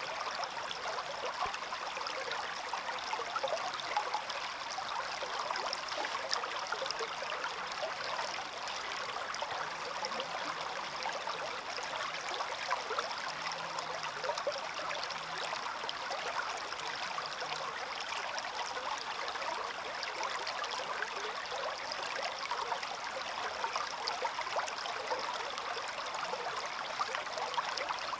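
Small stream flowing over stones, a steady rushing and trickling babble with no pauses.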